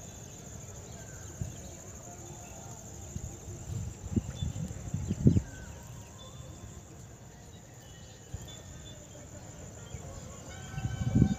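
Steady high-pitched insect chirring, with a few low thumps about four to five seconds in and again near the end.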